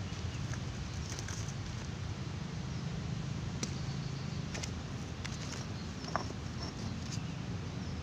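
Steady low outdoor rumble, like wind on the microphone or distant traffic, with a few faint ticks and one short faint chirp about six seconds in.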